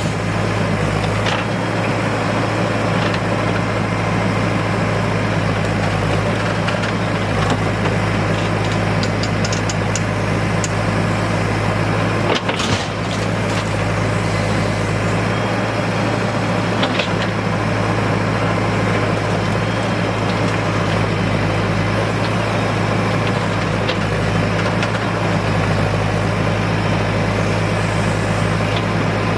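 Heavy diesel earthmoving engine running steadily at a constant speed, with a few brief knocks.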